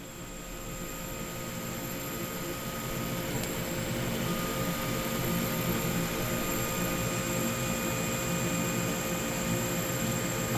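Laser cutter running as it cuts bellows fabric: a steady mechanical drone with a few thin constant whining tones, growing slightly louder over the first few seconds.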